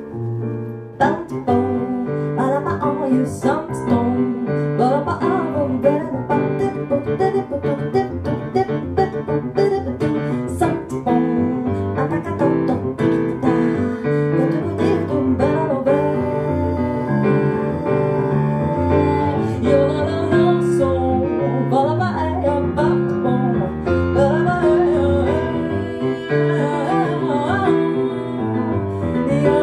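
Live jazz: a woman's voice singing with grand piano accompaniment, the voice sliding up and down in pitch over the piano's chords.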